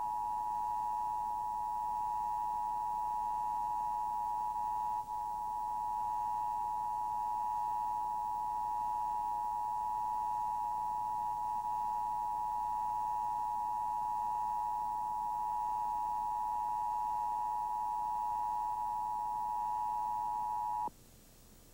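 Emergency Broadcast System Attention Signal: two steady tones sounded together, held for about 21 seconds with a brief dip about five seconds in, then cut off sharply near the end. It signals the activation of the EBS for an emergency announcement, here a National Weather Service warning.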